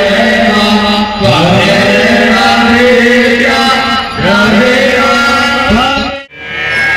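Devotional aarti chanting with music: a voice holding long, gliding sung notes over steady accompaniment. It breaks off abruptly near the end.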